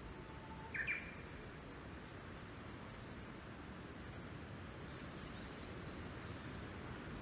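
A wild bird gives one short chirp about a second in, over steady low wind noise on the microphone; a faint, thin, high call drifts in near the end.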